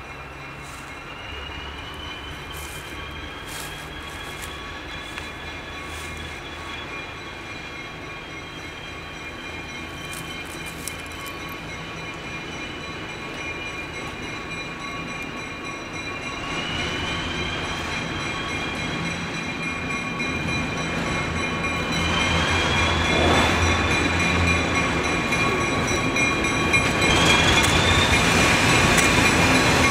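Diesel locomotive approaching with its train, the engine rumble growing steadily louder, with a high wavering wheel squeal from the steel wheels on the rails that grows stronger over the second half.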